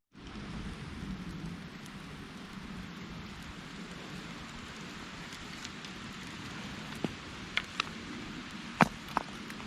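Mountain stream running with a steady rushing noise, with a few short sharp clicks or knocks near the end.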